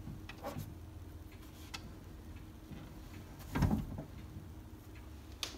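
Faint clicks and a soft thump about three and a half seconds in, from a hand swiveling the screen of a 1959 Philco Predicta TV on its base, over a low steady hum; a sharp click comes near the end.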